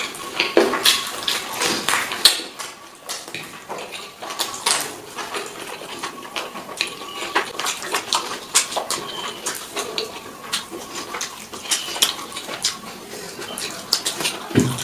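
Close-up eating noises: a person chewing and sucking on a fish head, with many irregular wet smacks and clicks.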